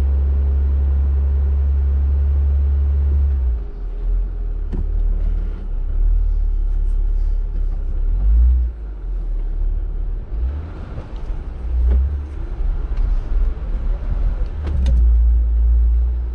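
An off-road Jeep's engine running steadily, then, from about three and a half seconds in, an uneven low rumble that surges and drops, with a few sharp knocks, as the Jeep works its way through deep sand ruts.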